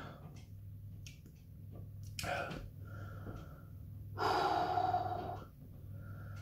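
A man breathing heavily through the burn of hot chilli sauce: a short sharp breath about two seconds in, then a longer, louder breath about four seconds in that lasts just over a second.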